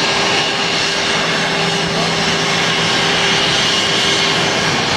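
Airbus A340-300's four CFM56 turbofan engines running as the jet rolls out along the runway just after touchdown: a steady jet noise with faint steady hums underneath.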